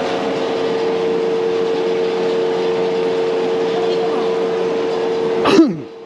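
Airport check-in hall ambience: a steady hum with indistinct background voices. About five and a half seconds in, a short sharp noise falls quickly in pitch, and the hall sounds quieter after it.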